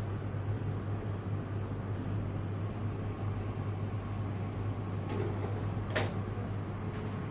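Steady low hum of a grocery shop's refrigerated display cases, with a single brief sharp knock about six seconds in.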